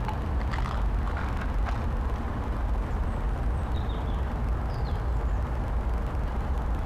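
Outdoor city ambience: a steady low rumble, with a few faint high chirps around the middle.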